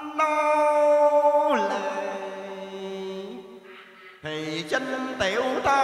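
Vietnamese cải lương singing: a voice holds long notes, sliding down in pitch about a second and a half in, then carries on with a busier wavering line over backing music.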